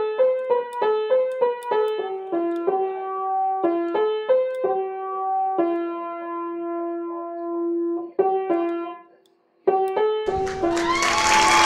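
Conn upright piano played one note at a time with one finger: a simple melody of quick notes and a long held note, with a short pause about nine seconds in before the playing starts again. In the last second or so a loud rushing noise with gliding tones comes in over the piano.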